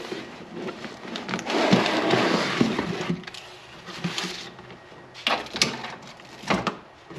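Packaging being handled as a wiring harness is taken out of its box: a long crinkling rustle about a second and a half in, then a few short sharp handling noises.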